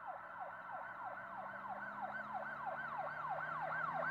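Siren in a fast yelp, its pitch sweeping up and down about three to four times a second and growing steadily louder.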